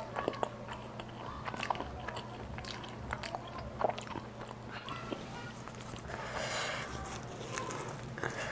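Close-miked eating of an Indian meal: scattered bites and wet chewing clicks, with a denser noisy stretch lasting about a second some six seconds in, over a steady low hum.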